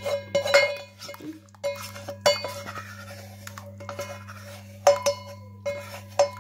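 Metal cookware clinking and scraping as thick tamarind chutney is emptied from a saucepan into a glass bowl: a handful of sharp, briefly ringing clinks with scraping between them, over a steady low hum.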